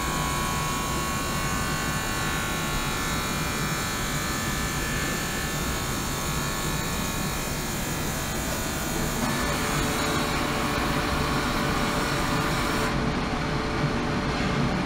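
Ultrasonic cleaning tank running, its driven water giving a steady hiss with many steady tones mixed in. The tone shifts about nine seconds in, and the highest part of the hiss drops away near the end.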